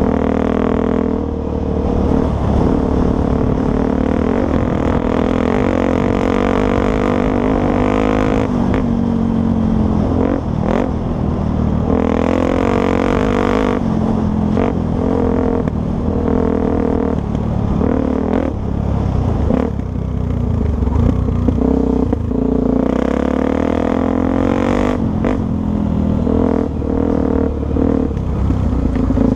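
Off-road motorcycle engine running under load, revving up and easing off again and again, with a few knocks and rattles along the way.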